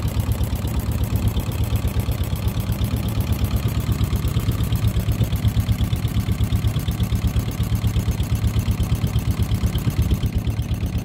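1956 Wickström AC inboard marine engine running steadily at low speed, with an even beat of about six pulses a second.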